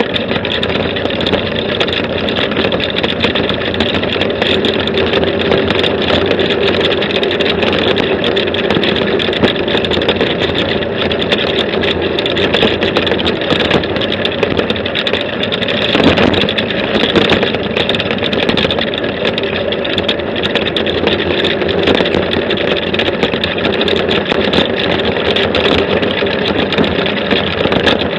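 A buggy's engine running loud and steady during a ride, with a brief thump about halfway through.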